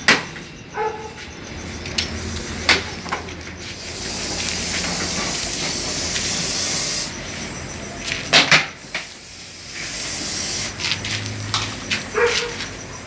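A snake hissing: one long, steady hiss of about three seconds in the middle, with several sharp knocks and scrapes from handling before and after it.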